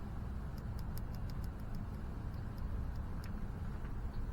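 Faint, irregular light ticks of a wire lead being tapped against the battery's positive terminal, throwing tiny sparks, over a steady low rumble. No click from the transmission's lockup solenoid can be heard: it sits too deep in the transmission to hear.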